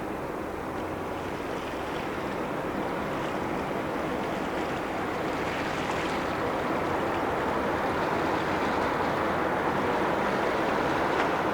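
Wake waves from a ferry washing and splashing against the harbour edge, slowly growing louder, over a steady low hum.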